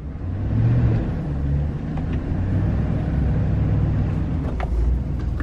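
Four-wheel-drive pickup truck's engine pulling under load, heard from inside the cab, as the truck backs out of deep, sticky mud after getting stuck. The engine swells about half a second in and then runs steadily.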